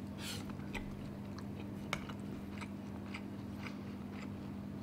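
Faint, scattered crunches and small clicks of eating kimchi and rice with chopsticks, with one sharper click about halfway through, over a steady low hum.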